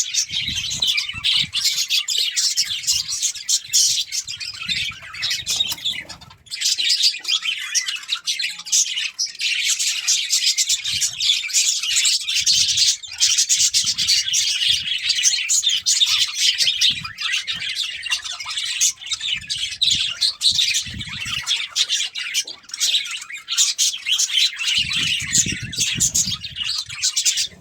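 Budgerigars chattering and chirping without a break, a dense run of fast twittering with occasional squawks.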